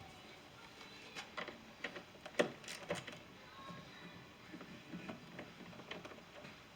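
Scattered light clicks and knocks of hand tools against the truck door's metal and plastic trim, irregular and quiet, with the loudest knock about two and a half seconds in.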